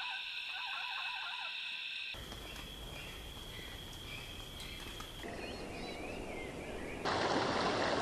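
A string of wild-nature recordings cut hard one after another. First a steady high drone with repeated wavering animal calls, then a thinner high tone over hiss, then short bird chirps, and about a second from the end a loud rush of running water.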